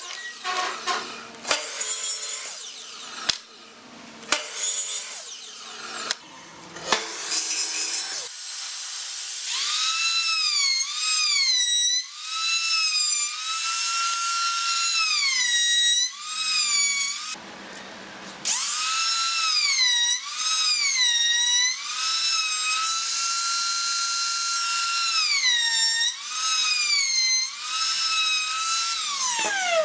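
A compound miter saw makes several short cuts through wood blocks during the first eight seconds. A compact trim router then runs with a high whine that dips in pitch each time the bit bites into the wood and recovers as it comes off. It stops briefly partway through, starts again, and near the end winds down with a falling pitch.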